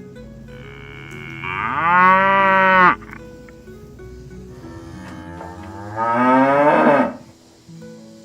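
Cattle mooing: two long, loud moos about three seconds apart, each rising in pitch and cutting off sharply, over soft background music.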